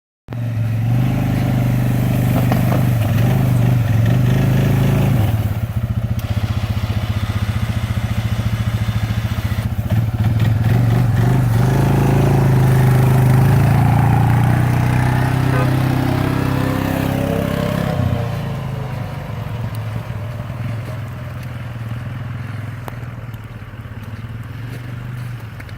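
Suzuki 500 ATV engine running under load while pushing a snow plow blade, with the scrape and crunch of the blade through snow. The engine gets quieter in the last third.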